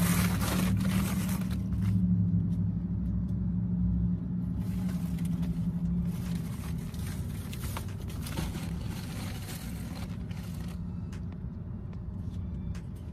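Low steady hum of a car engine idling. Over it come stretches of plastic rustling and handling noise, first as a shrink-wrapped case of bottled water is pushed onto the car seat, then twice more about five and eight seconds in.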